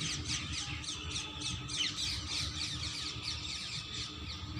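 Many birds chirping at once: a dense, continuous chorus of quick, downward-sliding chirps.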